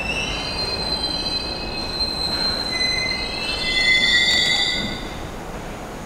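New York City Subway train's steel wheels squealing on the rails as it moves along the track. Several high squealing tones shift in pitch over a low rumble, grow loudest about four seconds in, then fade.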